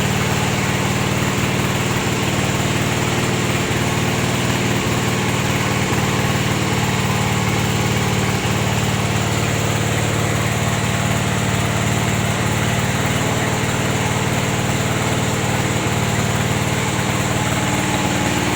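Small engine running steadily at a constant speed, powering a rubber latex press.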